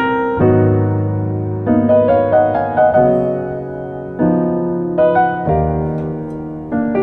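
Background piano music: gentle chords and melody notes struck and left to ring.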